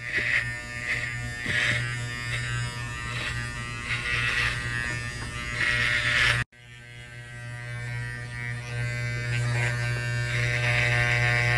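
Electric hair clippers running with a steady buzz, pushed through thick, curly hair. The buzz cuts out abruptly about six and a half seconds in, then resumes and grows louder.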